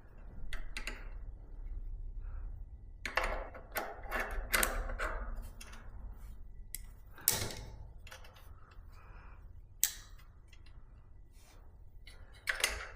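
Long-nose pliers clicking and scraping on metal as they work at the bent pin that holds the pads in a bicycle disc brake caliper. There is a run of quick light clicks, then a sharper knock and a few single clicks.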